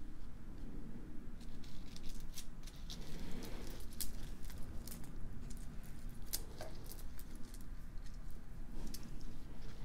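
Frosted glass beads clicking and clinking against each other as they are picked over and handled by hand, an irregular scatter of small sharp clicks.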